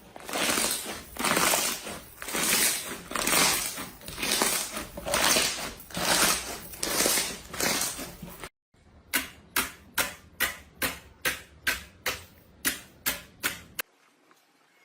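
Slime being pressed and kneaded by hand, giving crackly, squishy sounds in repeated pushes. After a cut, a quick run of sharp clicking pops, two to three a second, that stops shortly before the end.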